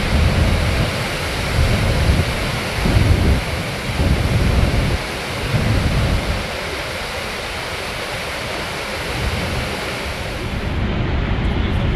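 Horseshoe Falls at Niagara: a loud, steady rush of falling water heard close to the brink, with uneven low surges of wind buffeting the microphone. The high hiss thins out near the end.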